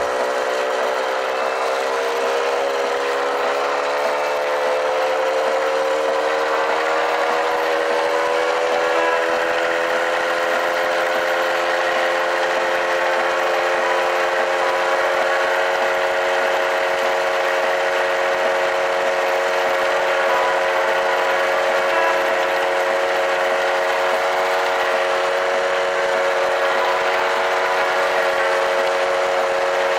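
1997 Kinetic Luna TFR 50cc two-stroke moped engine running under way. Its pitch climbs slowly through the first half as the moped gathers speed, then holds steady.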